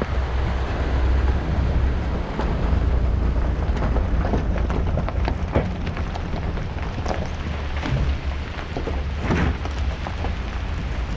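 Wind buffeting the microphone of a camera held out of a moving pickup's window, a deep steady rumble, with scattered pops and crackles over it as the truck rolls along a gravel road.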